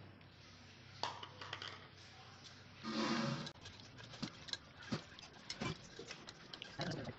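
Plastic spatula stirring steamed rice balls and grated coconut in a steel bowl, with scattered clicks and scrapes against the metal. A louder, longer scrape or rub comes about three seconds in.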